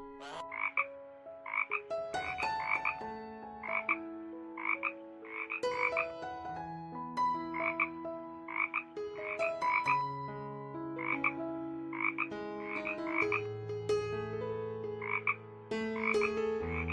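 Frog croaking in short double calls that repeat every half-second to a second, over a melody of held notes that step up and down in pitch.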